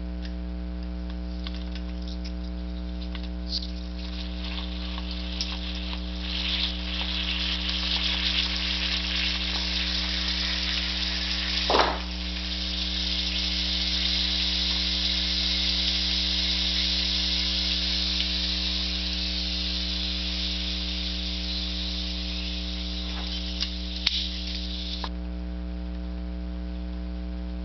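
Pressurised gas hissing steadily out of a capped plastic bottle as its cap is worked with locking pliers. The hiss starts about six seconds in and cuts off suddenly near the end, with a sharp click in the middle and another just before it stops. A steady mains hum runs underneath.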